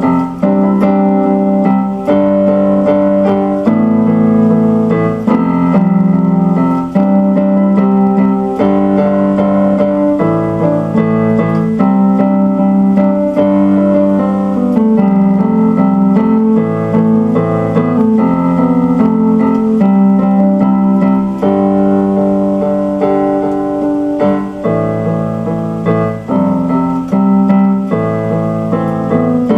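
Instrumental keyboard music: an electric piano playing sustained chords with a melody above them.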